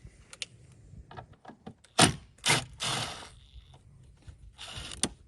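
Hand-tool work on a tail lamp's mounting screw: a T30 Torx bit being worked to remove it, giving scattered clicks, a sharp knock about two seconds in followed by a second, and two short scraping rattles.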